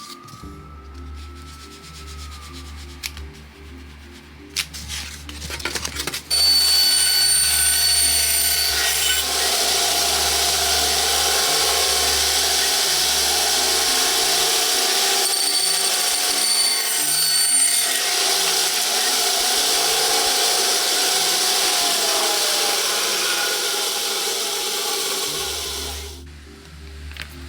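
A hand-held electric power tool runs steadily against wood, a loud, noisy whir with a thin high whine in it. It starts suddenly about six seconds in and fades near the end. Background music plays underneath, and a few light knocks come before the tool starts.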